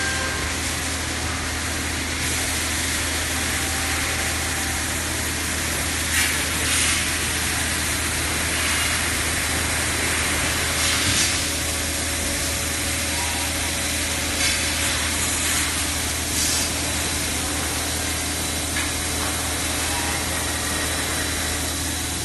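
CNC machining centre and robot-arm loading cell running: a steady machine hiss over a low hum, with brief louder hissing bursts about six, eleven, fourteen and sixteen seconds in.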